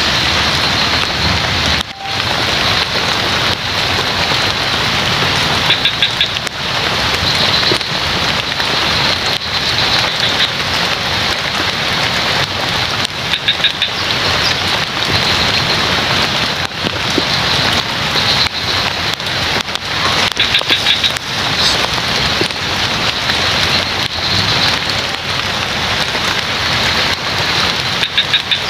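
Steady rain, with frogs calling in short trains of rapid pulses that recur every few seconds.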